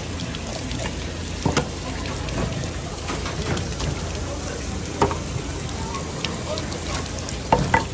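Tap water running steadily in a stream onto a wet work counter, with a few brief knocks in between.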